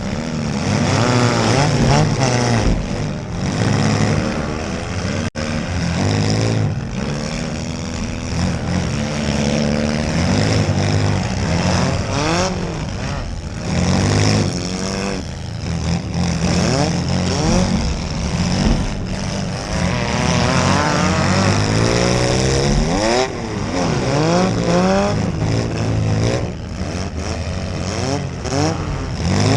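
Several demolition derby cars' engines revving hard, their pitch sweeping up and down again and again over a steady low rumble of other engines.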